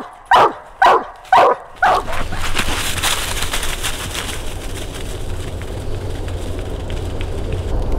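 A coonhound barking treed at a den tree, four quick chop barks about two a second, each falling in pitch. After about two seconds the barking stops and a steady rustle of dry leaves takes over as the hounds run through the leaf litter.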